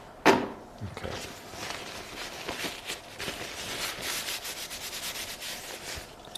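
Oil paint being worked with a painting tool: rapid, scratchy rubbing and scraping strokes against the painting surface, many short strokes in quick succession.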